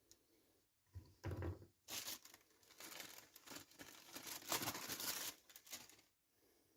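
Packaging being handled: crinkling and tearing in irregular bursts starting about a second in and stopping near the end.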